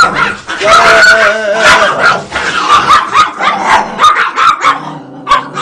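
Pet dogs fighting, barking loudly without a break, with a drawn-out higher cry about a second in.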